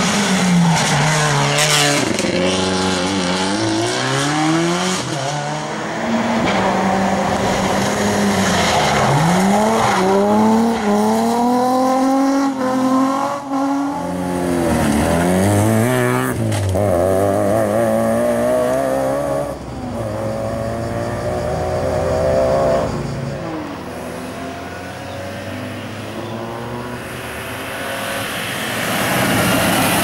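Rally cars passing one after another at speed, engines revving hard up through the gears and dropping back on each shift and lift, loud throughout.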